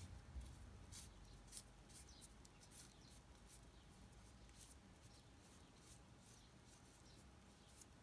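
Faint, irregular scratchy rubbing of fingertips smoothing glue-damp tissue paper onto a pencil, with the small scratches thinning out in the second half.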